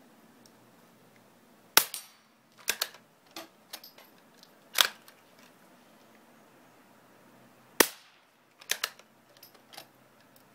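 Marlin Model 122 single-shot bolt-action .22 rifle firing low-powered CB rounds: three sharp shots about three seconds apart, with smaller clicks and knocks between them. The ammunition is old and, to the shooter, a little inconsistent.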